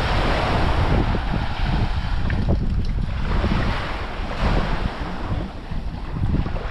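Wind buffeting the microphone in gusts over the wash of sea water.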